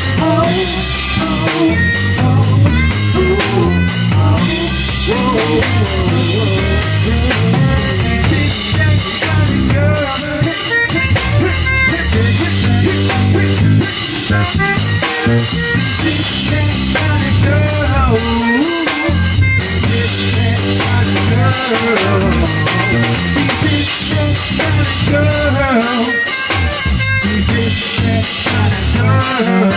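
Live rock band playing a song: a drum kit keeping a steady beat over a bass guitar line.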